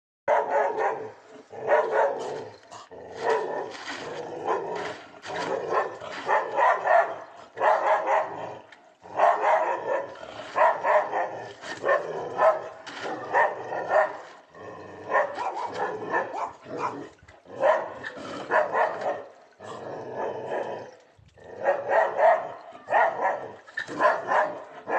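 A dog barking again and again at a gray langur monkey perched out of reach on a wall, in runs of several barks with a few short pauses.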